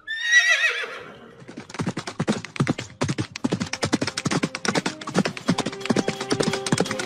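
A horse whinnies once with a quavering, falling call. Then its hooves clatter in a fast run of hoofbeats from about a second and a half in, a galloping horse.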